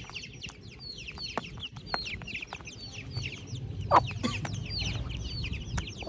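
A brood of Aseel chicks peeping continuously as they feed on egg pieces: many short, high, falling peeps overlapping one another. One louder, lower cluck stands out about four seconds in.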